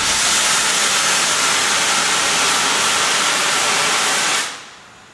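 Steam locomotive letting off steam: a loud, steady hiss that cuts off about four and a half seconds in.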